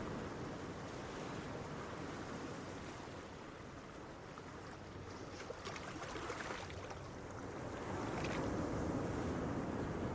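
Gentle ocean waves washing onto a beach: a steady rush of surf that eases off about four seconds in, hisses as a wave breaks in the middle, and swells again near the end.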